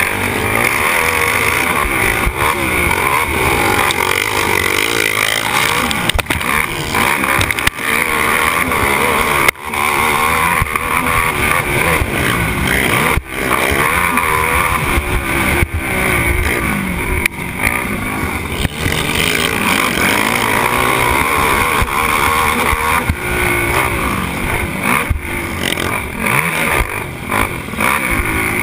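Racing ATV engine under hard throttle, its pitch climbing and falling through shifts and throttle changes, with a few short throttle cuts, one about 10 seconds in and another about 13 seconds in.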